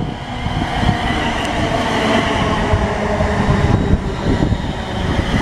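London Midland Class 350 Desiro electric multiple unit moving along the platform. Steady whining tones from its traction motors sound over a dense rumble of wheels on rail.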